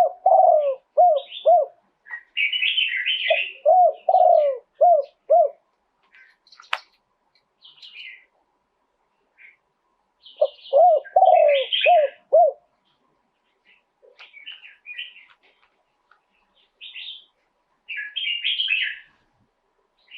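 Spotted dove cooing: three song phrases, each a longer coo followed by three short clipped coos. Higher-pitched chirps from small birds scatter in between.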